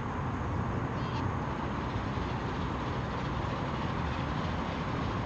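A 15-inch gauge miniature railway train running, a steady rumbling noise, with a brief faint high-pitched squeak about a second in.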